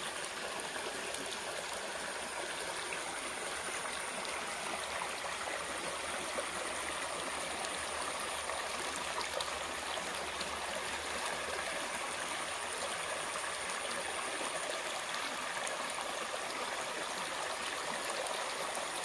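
Spring-fed stream running steadily, an even, unbroken rush of water.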